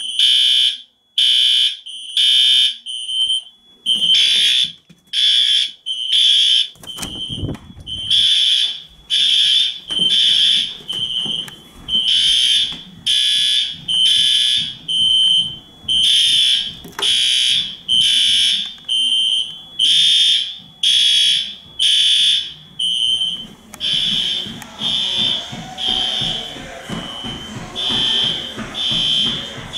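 Several fire alarm horns on a test alarm system sounding together in repeating pulses about once a second: a shrill tone mixed with buzzier horns, not in step with each other. About three-quarters of the way through the buzzier horns stop, leaving only the shriller beeping.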